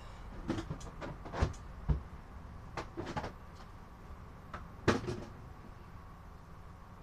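Scattered knocks and clicks of hard objects being handled and set down, about half a dozen in all. The sharpest come about a second and a half, two seconds and five seconds in.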